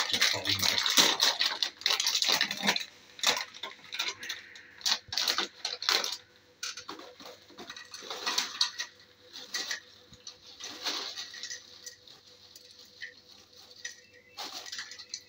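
A plastic snack bag crinkling as it is handled and opened, then tortilla chips shaken out of it, clattering onto a plate in scattered light clicks and rustles.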